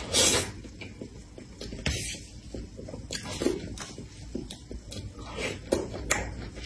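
Close-miked eating of soft cream cake: wet mouth smacks and chewing, with spoon clicks and scrapes as more cake is scooped. The loudest wet sound comes right at the start, as the spoon is drawn from the mouth.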